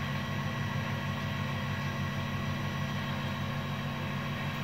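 Steady low machine hum with no change and no other sound standing out.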